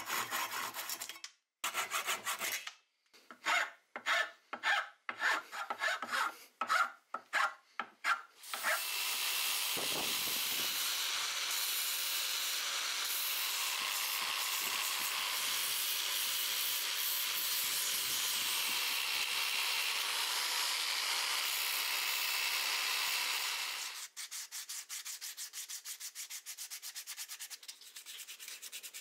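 A hand saw cuts through a wooden handle in about a dozen back-and-forth strokes, roughly two a second. A spinning sanding disc then grinds the end of the wood in one long steady rasp, about fifteen seconds. It stops sharply and gives way to quieter, quick strokes of sandpaper rubbing the wood by hand.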